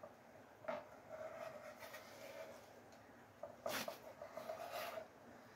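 Dividers scratching around a sheet of steel, scribing a circle. There are two faint scraping passes with a slight squeal, one starting about a second in and the other a little after three and a half seconds.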